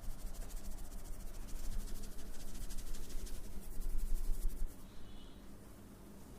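Fast, even scratching strokes from a hand massage on hair or skin, many a second, stopping about five seconds in.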